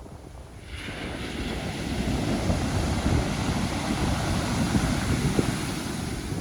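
Pacific Ocean wave breaking and washing up the shore: a rushing hiss that swells about a second in and holds before easing near the end, over a low rumble of wind on the microphone.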